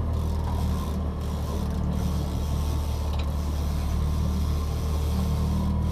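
Boat's outboard motor running at trolling speed with a steady low hum, mixed with the mechanical whirr and click of a fishing reel being cranked as a hooked salmon is reeled in on a loaded rod.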